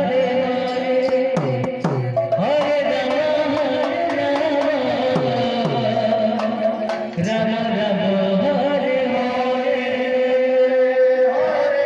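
Devotional kirtan music: a two-headed barrel drum beats, with bass strokes that slide down in pitch, under a long-held melody line. There is a short run of sharp drum strokes about a second or two in.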